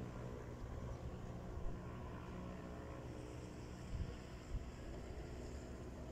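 Steady low outdoor rumble with a faint steady machine hum, and a few soft bumps.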